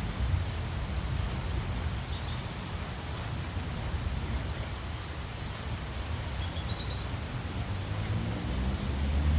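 Steady rain falling, with a low rumble underneath and a few faint, brief bird chirps scattered through.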